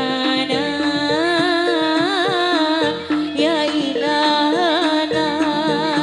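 Javanese jaranan gamelan music played live: an ornamented, wavering melody over a steadily repeated metallic note and regular drum strokes.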